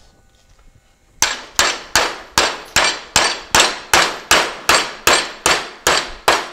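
A hammer striking a metal fender-skirt mounting bracket clamped in a vise, bending it over to a 90-degree angle. There is a steady run of about fourteen blows, a little under three a second, starting about a second in.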